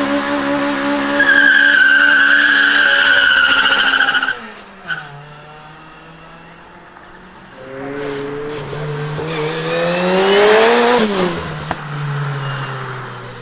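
Honda Integra Type R's four-cylinder VTEC engine held at high revs during a burnout, with loud steady tyre squeal that cuts off suddenly about four seconds in. The engine then runs quietly, and later revs climb over about three seconds before dropping; near the end another car's engine runs steadily.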